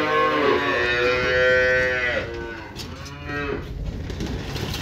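Hungry calves bawling, impatient for their milk: one long loud call, then a shorter, quieter one about three seconds in.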